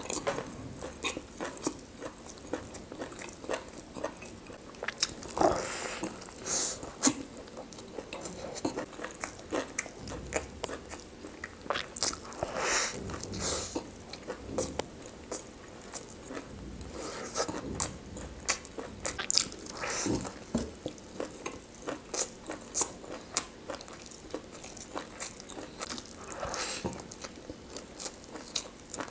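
A person chewing and biting into food close to the microphone, with many small sharp clicks and crunches.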